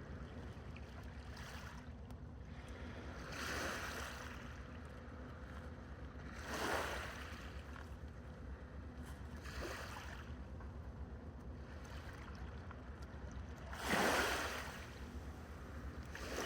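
Sea waves washing in against the shore, four separate swells that rise and fade, the last the loudest, over a steady low rumble.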